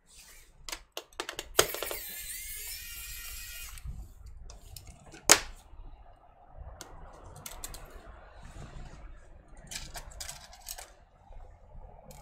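Small plastic and metal parts of an opened laptop being handled during a trackpad replacement: scattered light clicks and taps, a scraping rustle lasting about two seconds near the start, and one sharp click about five seconds in.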